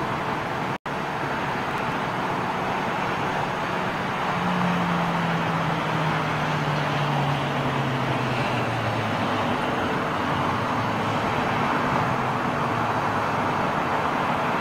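Airport ambience: a steady roar of jet aircraft and ground vehicles that swells a little about four seconds in, with a lower hum falling in pitch over the next few seconds as something passes. The sound cuts out for an instant about a second in.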